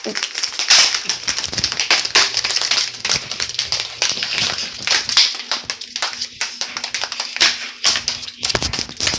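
Close handling noise on a phone's microphone: continuous rustling and scraping with rapid small knocks as fingers and paper rub against it.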